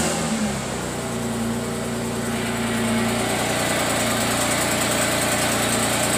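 Ford Mustang engine idling steadily just after being started.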